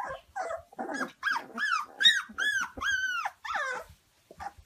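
Young puppies yipping: a run of about six short, high yips, each rising and falling in pitch, after some lower, rougher growling at the start.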